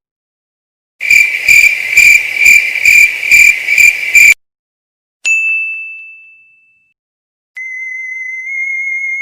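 A run of separate sound effects: a high, pulsing tone over low thumps for about three seconds, then a single ding that rings away, then a steady high whistling tone starting near the end.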